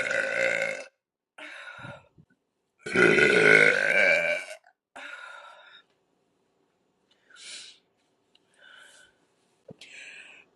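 A woman's long, loud burps: one trails off about a second in, and a second lasts nearly two seconds from about three seconds in. A few short faint sounds follow.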